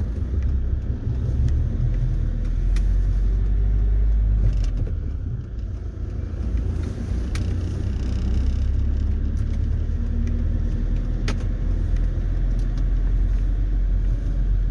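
Vehicle driving slowly, heard from inside the cab: a steady deep rumble of engine and road, with a few light clicks or rattles now and then.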